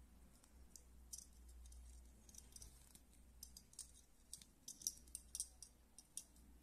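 Faint handling noise: scattered light clicks and ticks, thickest about two-thirds of the way through, as fingers wrap a thread around bracelet cords, a plastic straw and a metal binder clip. A low steady hum sits underneath.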